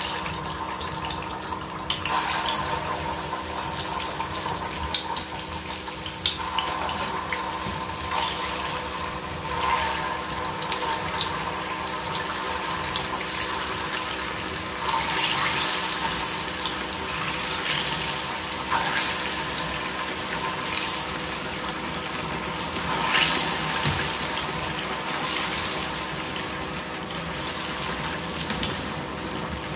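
Sliced plantain deep-frying in a pan of hot oil: a steady sizzle and bubbling that swells and eases several times.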